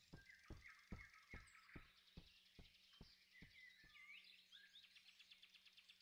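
Near silence: faint forest ambience with small bird chirps, and a row of faint ticks, about two or three a second, that grow weaker and die away after about four seconds.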